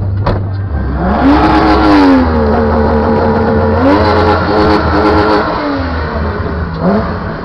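Car engine revved hard twice. It climbs steeply about a second in and holds at high revs, eases off, climbs again about four seconds in, then drops back near the end.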